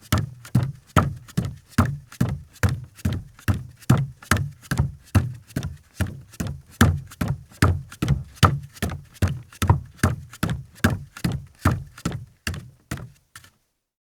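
Bare feet of a man walking on a deck: a steady series of soft low footfall thumps, about two to three steps a second, growing fainter and stopping shortly before the end.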